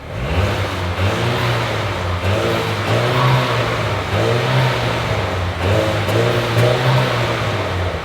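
Mercedes car engine revved several times through its stock exhaust, the pitch rising and falling back with each rev. A mild note, which the owner calls a little purr and wants deeper.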